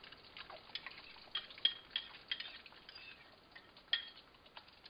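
A utensil clinking and scraping against a porcelain bowl as the last of the beaten egg is scraped into a wok, several sharp clinks with a brief ring, the loudest about four seconds in. Under it a faint crackle of the egg frying in oil.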